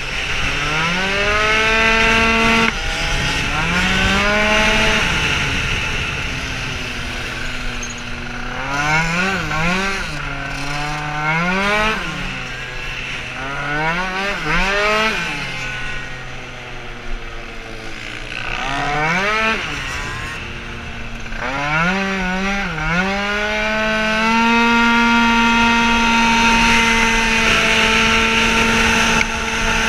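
Racing scooter's tuned two-stroke engine at full throttle, the revs climbing and dropping over and over as the rider accelerates out of corners and shuts off into the next ones, then held at a steady high pitch near the end. Wind rushes over the helmet microphone throughout.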